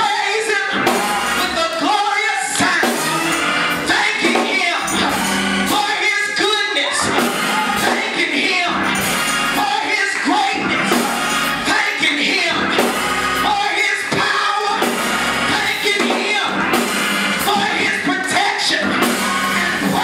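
Live gospel music: a woman singing into a handheld microphone, with drums and organ accompanying.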